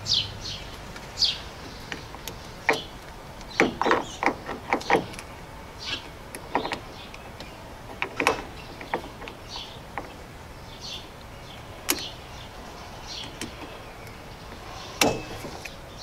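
Side-post battery terminal wrench being turned to tighten the positive terminal bolt: scattered metal clicks and taps, several in a quick cluster a few seconds in and single sharper ones later.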